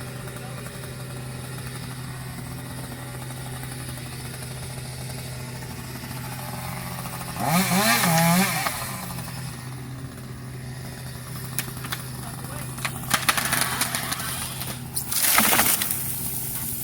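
A chainsaw idling steadily, with a person shouting about halfway through. Near the end come sharp cracks and then a loud crash.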